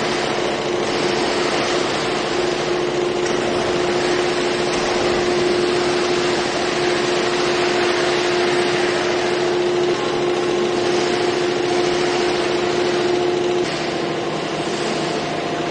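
Concrete pole production machinery running steadily: a continuous mechanical noise with a steady whine over it. The whine cuts off near the end and the noise drops slightly.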